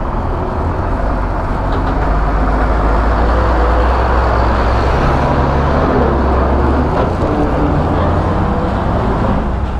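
Motor vehicle engine and road noise: a low engine rumble under a dense roar that builds after a couple of seconds and eases near the end.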